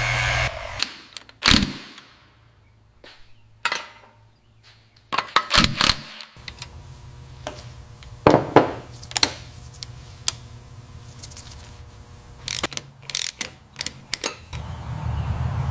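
Workshop tool sounds. A loud blower-like power tool stops about half a second in, then comes a scattered series of sharp clicks and knocks over a low steady hum, and the power tool starts up again near the end.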